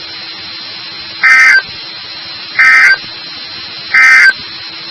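Three short bursts of NOAA Weather Radio SAME digital data tones, evenly spaced about a second and a half apart: the end-of-message code that closes the flash flood warning broadcast. Steady radio hiss runs under the bursts.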